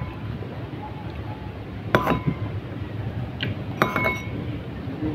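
Mussel shells and dishes clinking while mussels are eaten by hand: a few sharp clinks, each ringing briefly, about two seconds in and again near four seconds.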